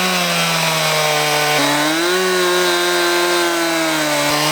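Chainsaw in an Alaskan mill running at high revs under cutting load, ripping a log lengthwise into slabs. Its steady pitch drops abruptly about a second and a half in, then rises again and holds.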